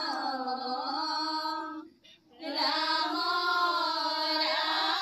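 A group of women singing a Vaishnavite devotional hymn (ghosha) in unison, in two long drawn-out phrases with a brief pause for breath between them, as a prayer against river erosion.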